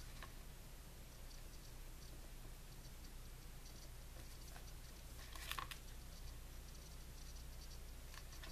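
Faint rustling and rubbing of fingers pressing decorative tape onto a planner's paper page, with a few soft ticks and a brief louder crinkle about five and a half seconds in, over a low steady hum.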